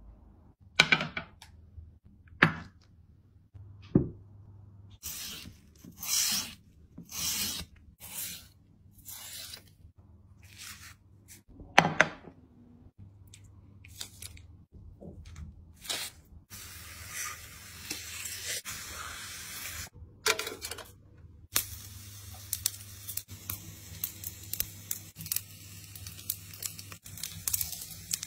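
Raw beef being cut and pushed onto metal skewers, a string of separate tearing, rasping strokes. Later comes a steady hiss, then the skewered meat sizzling and crackling as it roasts on a grill.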